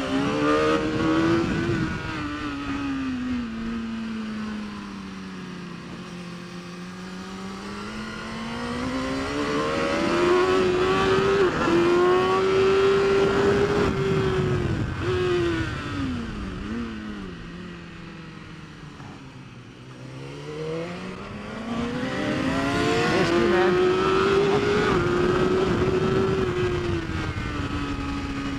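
BMW S1000RR superbike's 999cc inline-four engine at race pace, revving up through the gears and dropping back for corners. The pitch climbs and falls in long sweeps about three times, with quick breaks at the shifts and stepped drops on the downshifts.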